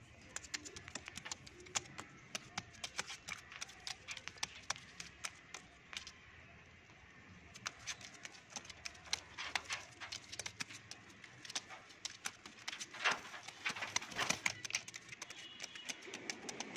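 Irregular sharp clicks and taps, coming thickest and loudest near the end.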